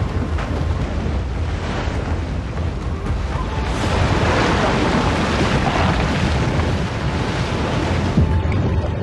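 Dramatic rushing noise of wind and rain over a deep rumble, swelling to its loudest a few seconds in, with background music.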